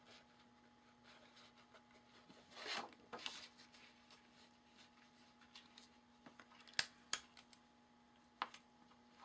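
Faint handling of Scotch tape on cardstock: two short rasps as tape is pulled off the roll, then a few sharp clicks near the end.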